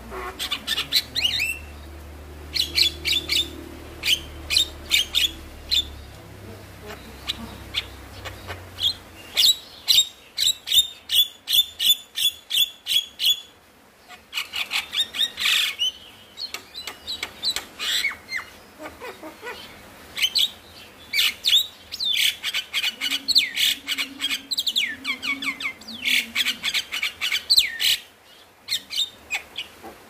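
Javan myna calling in fast runs of short, sharp repeated notes, some of them sliding downward, broken by brief pauses.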